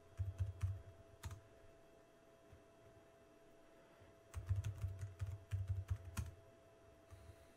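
Typing on a computer keyboard: a short run of keystrokes ending in a single sharper key click, a pause of about three seconds, then a second run of keystrokes ending in another sharp click.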